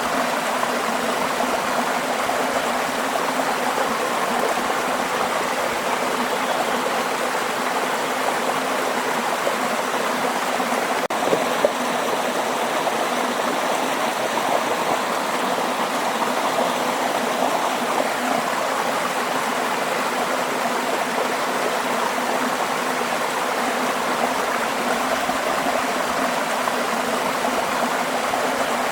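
Waterfall: a steady, even rush of falling water with no change in strength, and a single brief click about eleven seconds in.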